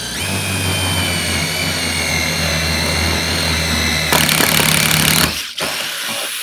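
Makita cordless impact driver boring into wood with a drill bit. The motor whine sags a little under load over a steady low hum, and it turns louder and harsher for about a second, about four seconds in. It stops, then runs again briefly under a lighter load.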